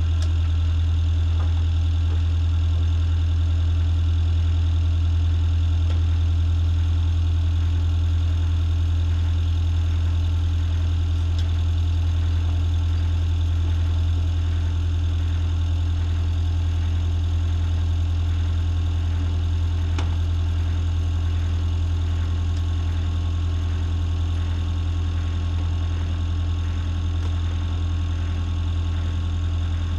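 Motor boat's engine running steadily at low revs: a deep, even drone that holds through, with one light click about two-thirds of the way in.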